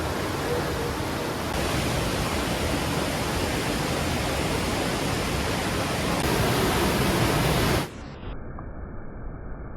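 Steady rush of a canyon waterfall and river. About eight seconds in it cuts off abruptly, giving way to a fainter, muffled hiss.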